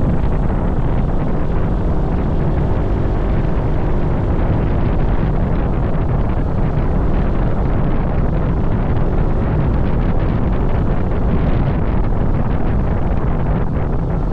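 Wind buffeting the microphone over the steady rumble of a moving vehicle, as heard while riding.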